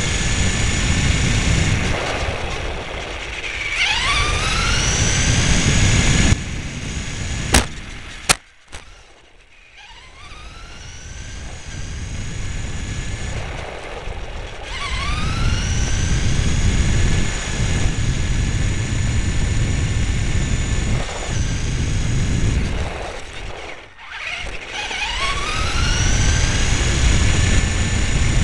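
Motor of a radio-controlled car, heard close up from a camera mounted on the car: a high whine that rises in pitch and levels off each time the car speeds up, three times, over a rumble of tyres rolling on asphalt. Two sharp clicks come about seven and eight seconds in, followed by a few seconds of quieter running.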